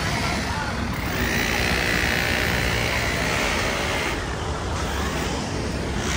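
Busy city street traffic: vehicle engines and tyres running steadily, louder as traffic passes from about a second in, easing off near four seconds.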